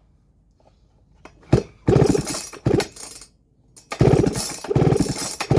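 Baumr-AG SX92 two-stroke chainsaw being pull-started: several hard tugs on the recoil starter, the engine turning over with fast ticking but not catching. The owner puts the failure down to bad fuel.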